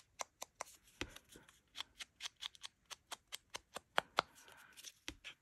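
Rapid light tapping, about four to five taps a second, of an ink applicator being dabbed onto a small birdhouse to ink it, with a couple of louder taps about four seconds in.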